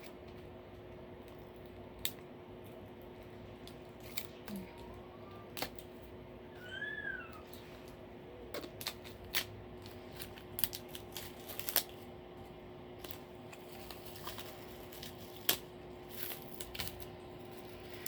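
Plastic shrink-wrap being picked at and peeled off a Blu-ray case: scattered sharp crinkles and clicks over a faint steady hum. There is a short rising-and-falling squeak about seven seconds in.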